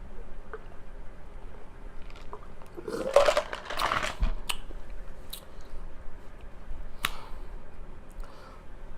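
Close-miked chewing and mouth sounds of someone eating steamed chicken momo dumplings. There is a louder noisy stretch about three seconds in, then a few sharp clicks.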